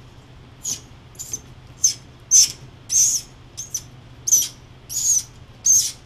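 Short high-pitched plastic squeaks, about ten in a row at uneven intervals, as a white plastic fitting is twisted and pushed into the end of blue PEX pipe, plastic rubbing on plastic.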